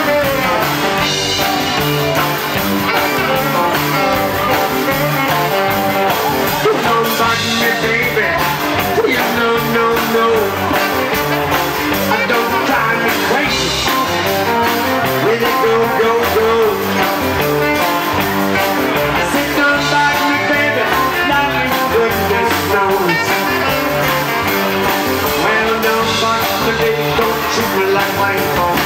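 A rockabilly band playing live: upright double bass, drums and acoustic guitars, with a saxophone carrying the melody at the start and a man singing near the end.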